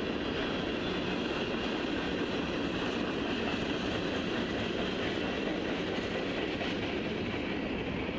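Freight train rolling past: a steady rumble of steel wheels on the rails, picked up by a trackside webcam's microphone.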